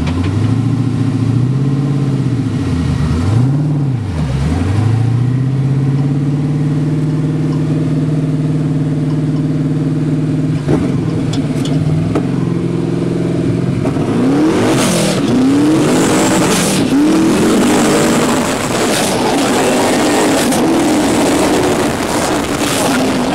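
Twin-turbo LS V8 engine of a sand rail buggy driven hard. Its revs dip and climb twice, hold steady for several seconds, then rise and fall rapidly from about halfway in, with a loud rushing noise over the engine.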